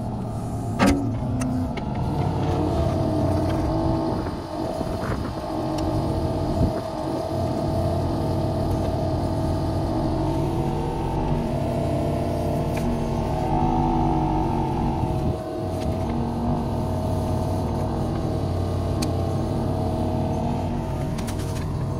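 Kubota U35-4 mini excavator's diesel engine running under hydraulic load, its note rising and falling as the boom and thumb work to grip a heavy log. A sharp knock about a second in, and a smaller one about seven seconds in.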